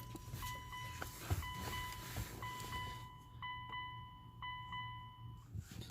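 Car's electronic warning chime sounding as a steady pitched tone in stretches of about a second, with short breaks, over a low steady hum.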